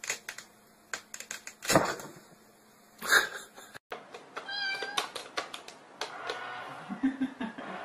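A cat bumping and rustling inside a plastic bin, with two louder knocks. After a short break there is more light tapping and a short meow.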